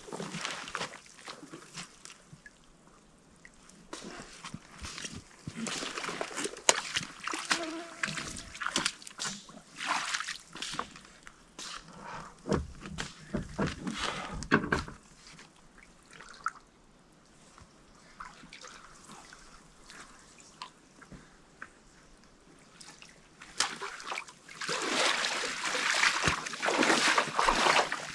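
Lake water sloshing and splashing in irregular bursts, with small knocks, and a longer, louder stretch of sloshing near the end.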